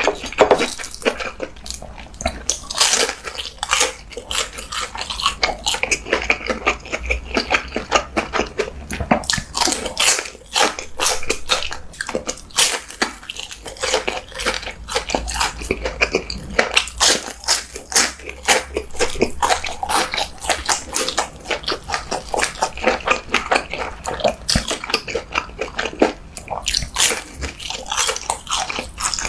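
Close-up chewing and crunching of deep-fried breaded food: a dense run of crisp crackles and wet mouth sounds, many a second, that goes on without a break.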